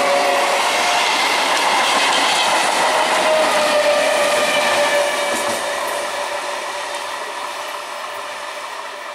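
Nine-coach electric multiple unit (EMU) suburban train running past at close range: the noise of wheels on rails, with several steady whining tones. It fades from about five seconds in as the train draws away.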